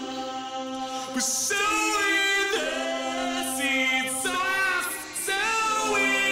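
A cappella pop vocals: several voices singing together in harmony with no instruments, some notes held and others sliding up and down in pitch. The voices get louder about a second in.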